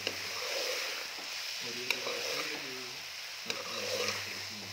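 Potatoes, chicken and brown pulses sizzling in oil in a metal pan while being stirred, with a few sharp clinks of the metal spoon against the pan.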